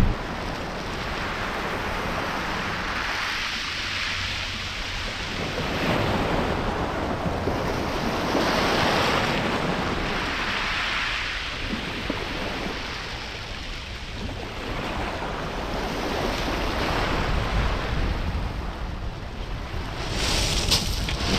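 Sea waves breaking and washing on the beach, swelling and fading every few seconds, with wind rumbling on the microphone.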